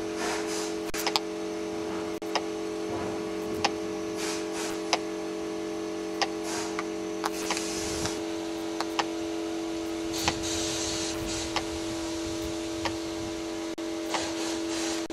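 A steady hum at a few fixed low pitches, like a small motor or electrical device, with scattered sharp clicks and ticks throughout.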